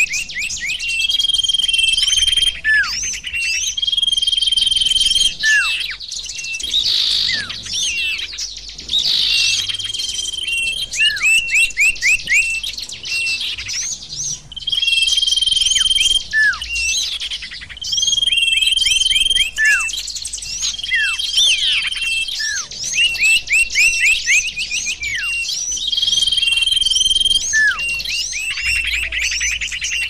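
Recorded songbird calls played as a bird-trapping lure (pikat), the bird the title calls sirpu: fast high chirping trills alternating with a level whistle about a second long, recurring every couple of seconds, with short notes sliding downward in between.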